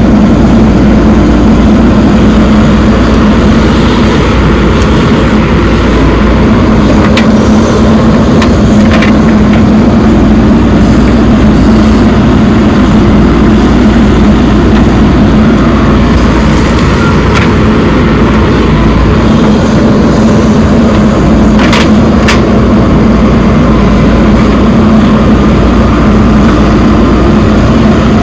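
Diesel engine of a JCB backhoe loader running steadily under load while it digs and loads soil, with a few sharp knocks from the work.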